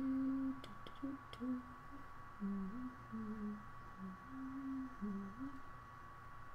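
A person softly humming a tune, short held notes stepping up and down, over a steady high-pitched electronic whine. Two light clicks in the first second and a half.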